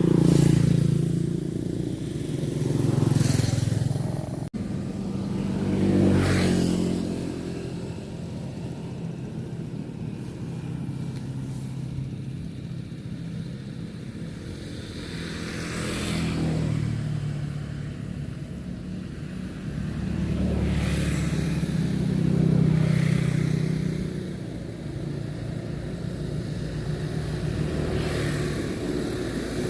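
Road traffic passing close by: several motor vehicles go past one after another, each engine swelling and then fading away.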